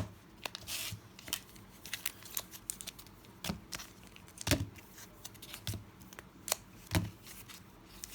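Pokémon booster packs being handled on a table: irregular light taps and knocks, with a brief crinkle of foil wrapper about a second in.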